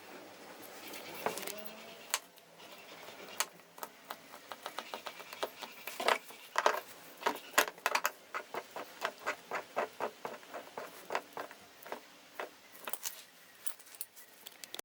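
A run of sharp, irregular clicks and taps, a few at first and then about two to four a second from a few seconds in.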